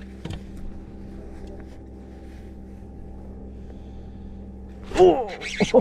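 Steady low hum of a boat motor running. About five seconds in, a loud call with gliding, pitched notes cuts in and goes on in quick repeats.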